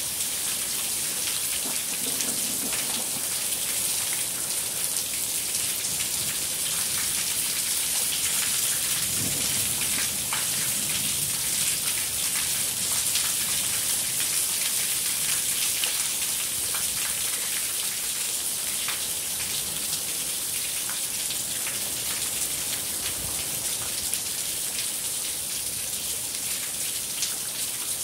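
Heavy monsoon downpour splashing onto a flooded brick patio: a dense, steady hiss of rain hitting standing water.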